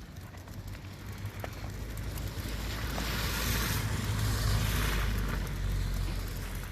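A passing vehicle: a rushing tyre noise swells over a few seconds and fades, over a steady low rumble.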